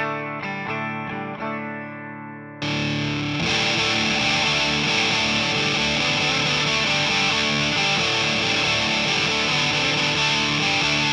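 Electric guitar through a Big Muff-style fuzz pedal into a Two-Rock amp. Single notes are picked with little grit for the first couple of seconds, then a loud, thick fuzz comes in suddenly with sustained chords that hold steady.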